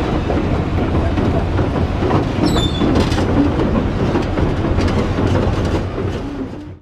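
Sound effect of a heavy tracked vehicle on the move: a deep engine rumble under a dense metallic clanking of track plates, with a brief falling squeal about two and a half seconds in. It cuts off suddenly near the end.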